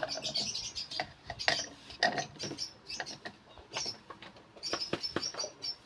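African lovebirds giving short, high squeaky chirps, many in quick succession in the second half, over scattered sharp clicks and knocks.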